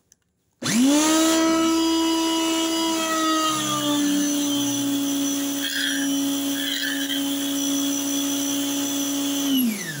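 Electric pressure washer switched on about half a second in: its motor starts abruptly into a loud, steady hum that dips slightly lower in pitch a few seconds in, under the load of water spraying from the lance in a fine fan. Near the end it is switched off and the hum falls away in pitch.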